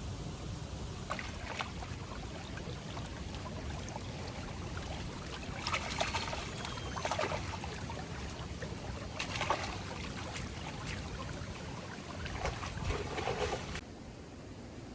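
Steady rush of flowing water, with short bursts of crackling and rustling every few seconds. The water sound drops suddenly near the end.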